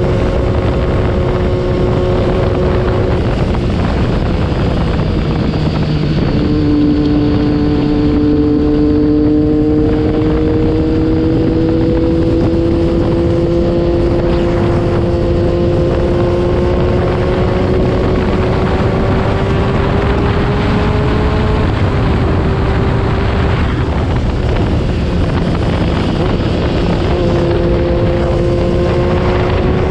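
Wind blasting over the action camera's microphone, over the running inline-three engine of a Triumph Daytona 675R with a Yoshimura Alpha full exhaust. The engine note climbs slowly as the bike pulls, and steps down in pitch at a few gear changes.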